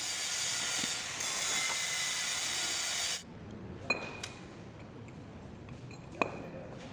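A steady hiss that cuts off abruptly about three seconds in, then two sharp metallic clinks about two seconds apart as a steel pipe and a weld-crusted metal rod are handled.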